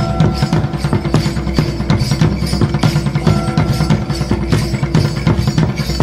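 Dance accompaniment music with fast, steady drumming and a short melodic phrase that comes back about every three seconds.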